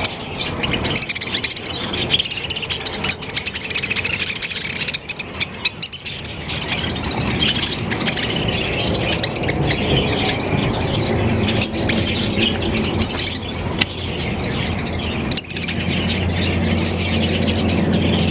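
A flock of parakeets chattering, with dense high chirps and squeaks. A low steady hum comes in near the end.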